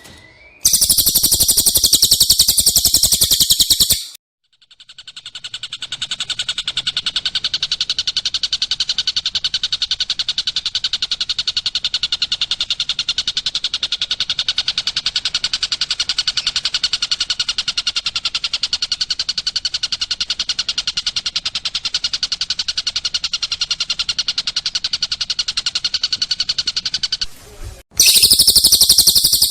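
Recorded songs of cililin and tengkek buto: a loud, very high shrill trill for about three seconds, a short gap, then a long, even, very fast trill lasting over twenty seconds, and the loud high trill again near the end.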